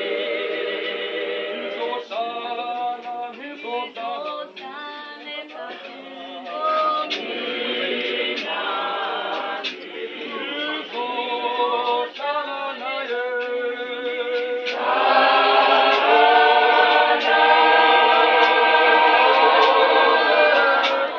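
Church choir of men's and women's voices singing together, growing fuller and louder about fifteen seconds in.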